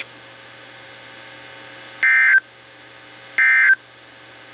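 Two short bursts of NOAA Weather Radio SAME digital data tones, each about a third of a second long and about one and a half seconds apart, over faint radio hiss. This is the end-of-message code that closes an alert broadcast.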